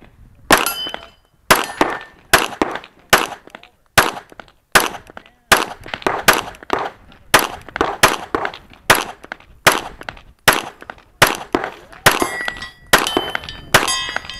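Smith & Wesson M&P9L Performance Center 9mm pistol firing a rapid string of about twenty shots, roughly one every half to three-quarters of a second. Steel targets ring out with a clang after some hits, most often near the end of the string.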